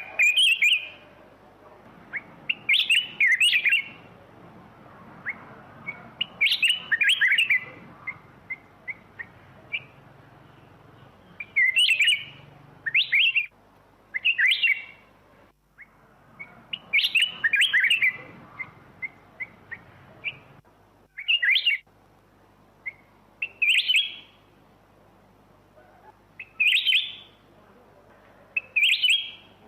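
Black-crested bulbul singing: a dozen or so short, loud, quickly warbled phrases, one every two to three seconds, with single short chirps in between.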